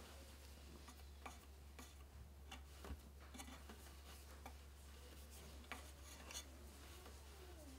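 Faint rubbing and scattered light ticks of a fabric-strip weft being drawn by hand through the warp threads of a small wooden frame loom, over a steady low hum.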